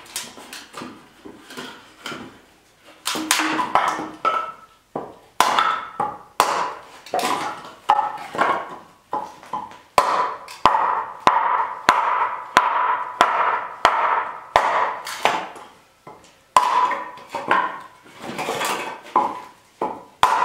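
Small hatchet chopping boards into kindling: a series of sharp wooden knocks, each blow ringing briefly. The blows come unevenly at first, then settle into a steady rhythm of about one and a half a second, pause briefly, and pick up again near the end.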